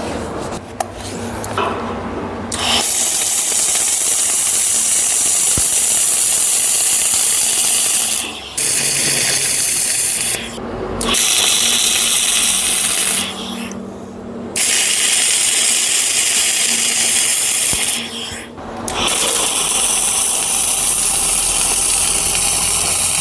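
Arc welding on the steel link brackets of a tractor-mounted log splitter: a steady sizzling hiss laid down in several beads a few seconds long. It starts about three seconds in and breaks off briefly four times, around 8, 10½, 14 and 18 seconds.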